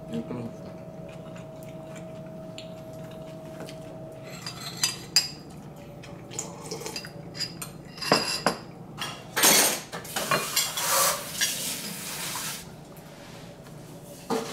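Metal spoon and chopsticks clinking and scraping against ceramic bowls as dishes are handled, in a run of sharp clinks that grows busier about eight seconds in.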